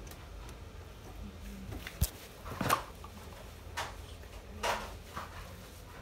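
Hands handling the plastic drain valve assembly of a Toshiba top-load washing machine: a sharp click about two seconds in, then a few short scrapes and rustles of plastic parts, over a steady low hum.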